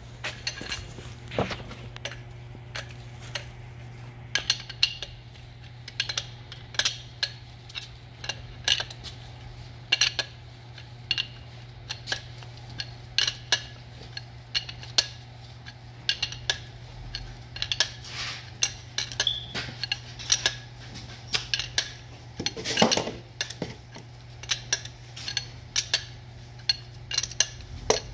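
Irregular metallic clicks and clinks of a wrench working on a brass pressure-test fitting threaded into the oil hole of a Flygt 3152 pump's steel housing, over a steady low hum.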